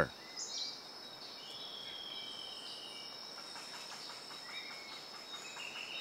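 Faint forest ambience: a steady high-pitched insect trill, with a few short bird-like chirps over it.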